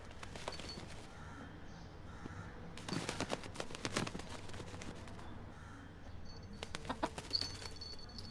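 Quiet short clucks from a pet rooster in a couple of quick clusters, about three seconds in and again near the end. A thin steady high tone comes in near the end.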